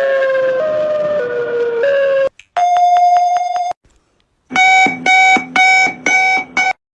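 Electronic emergency-alert tones played one after another. First a siren-like tone changes pitch in steps and cuts off about two seconds in. Then a fast-pulsing steady tone lasts about a second, and after a short gap comes a run of short bursts, each a high tone dropping to a low one.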